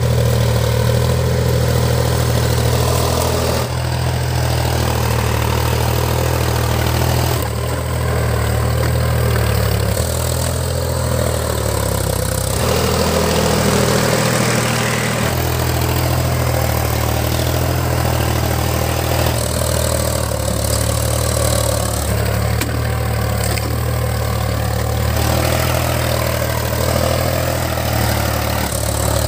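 HMT diesel tractor engine running steadily while the tractor tills soil, its low engine note shifting a little several times.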